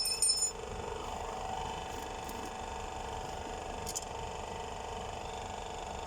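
A short metallic clink with a ringing tone as a metal part is handled during engine bearing work, followed by a steady background hum with a couple of faint clicks.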